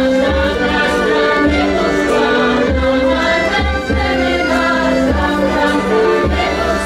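Choir singing held notes with instrumental accompaniment and low bass notes underneath.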